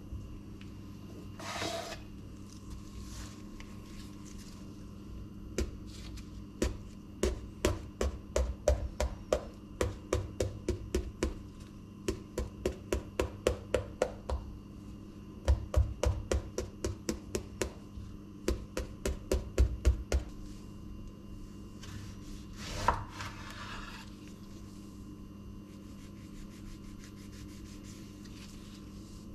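Chef's knife slicing an eggplant on a wooden cutting board: runs of sharp knocks, about three a second, as the blade cuts through and strikes the board, with a short pause between runs. A steady low hum sits underneath.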